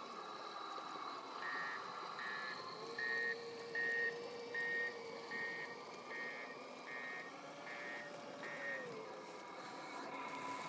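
Reversing beeper of a 1:8 radio-controlled PistenBully 300 Polar snow groomer model, beeping about ten times at a steady pace of a little over one beep a second, over the steady hum of the model's running drive.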